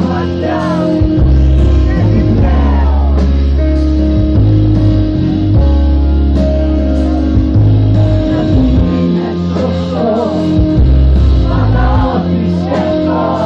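Live band playing a rock-styled song with heavy, sustained bass notes while a woman sings into a microphone, heard through the crowd.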